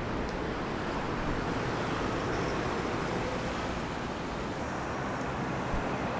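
Steady traffic noise of a busy city road.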